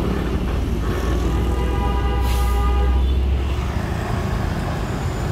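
Heavy diesel truck passing at low speed, its engine a strong low drone that fades after about three and a half seconds. A steady pitched tone runs over it for about two seconds, and a short hiss of air comes about two seconds in, in road traffic.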